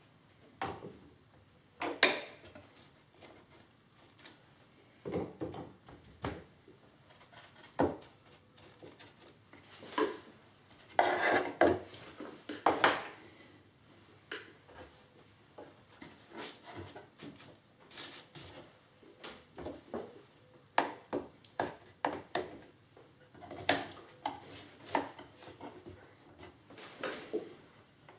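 Wooden cello rib and blocks being handled on a building frame, with steel F-clamps being set and tightened: irregular knocks, taps and clicks of wood and metal, with a few short scrapes.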